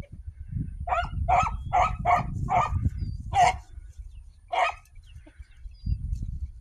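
A hound barks in short bursts, about seven barks in the space of four seconds, with a longer gap before the last. This is a hound giving voice as it works a rabbit's scent through brush.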